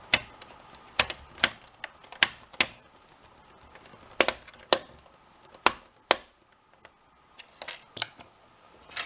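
Irregular sharp clicks and taps, about a dozen, from a PlayStation 4's plastic parts and screws being handled and fitted back together during reassembly.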